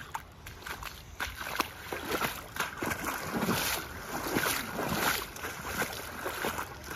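Footsteps wading through shallow river water, with a splash and slosh at each irregular stride.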